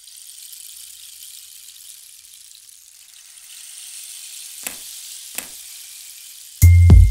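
Intro-animation sound effects: a soft, high, airy hiss, then two mouse-click sounds a little under a second apart as a subscribe button and its notification bell are clicked. Near the end, loud music with deep bass hits starts.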